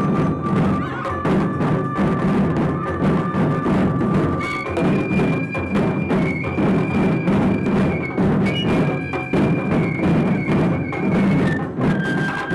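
Taiko ensemble playing barrel-shaped drums on slanted stands in a fast, driving rhythm. A high flute holds long notes over the drums, jumping higher about four and a half seconds in.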